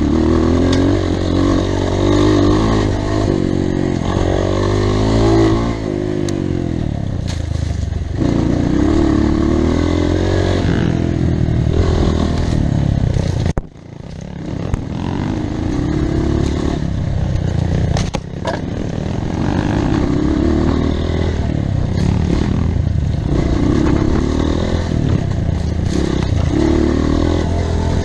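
Off-road trail motorcycle engine running and revving up and down repeatedly, with a short dip in level about halfway through.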